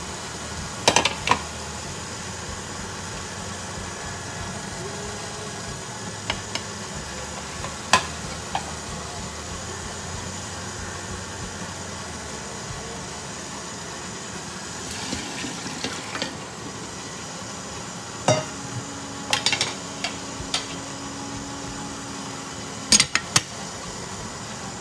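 Metal spoon scraping and clinking on a ceramic plate as diced corn is tipped into a Lamp Cook automatic stirring pot, over a steady hiss of the corn cooking while the pot's paddle stirs it. Scattered clinks and clacks follow, with a sharp pair near the end as the lid's window flap is shut.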